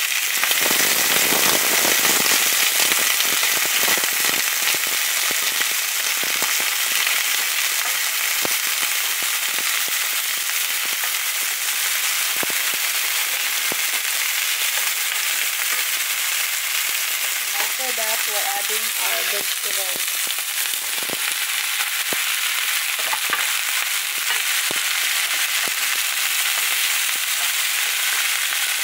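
Sliced onions and garlic sizzling and crackling in hot oil in a frying pan over high heat, stirred with a wooden spoon. The sizzle is loudest in the first few seconds, just after the onions go in, then settles to a steady hiss.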